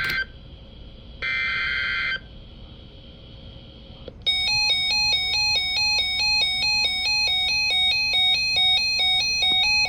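Emergency Alert System digital data bursts: the end of one buzzy burst right at the start and another lasting about a second shortly after, the three-burst end-of-message code closing the warning. About four seconds in, a loud electronic alert chime starts, a repeating melody of stepping tones at a few notes a second.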